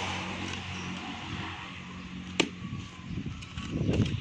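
A steel digging bar jabbed into hard, stony soil: a sharp clink about halfway through, then a run of crunching and scraping of earth and stones near the end.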